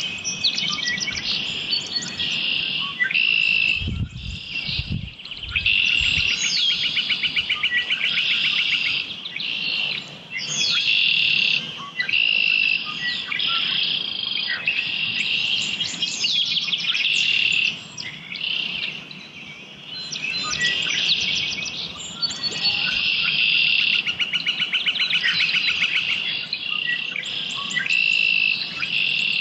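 Songbirds singing in an early-morning chorus: high, rapid trilled songs repeated every few seconds, overlapping at times. A couple of low thumps sound about four to six seconds in.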